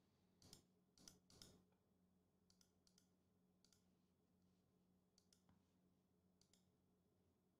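Near silence with a few faint computer mouse clicks: three in the first second and a half, then scattered fainter ticks.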